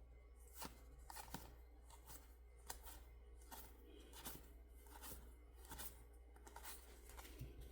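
Faint handling of trading cards and booster-pack wrapper: a series of short, crisp paper swishes and flicks about every half second to a second, over a steady low hum.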